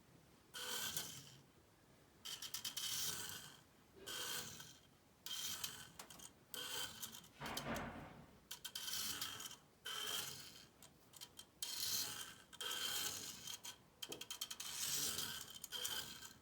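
Micro RC car's tiny electric motor and plastic gears whirring with a high whine in about ten short bursts, starting and stopping as it is driven.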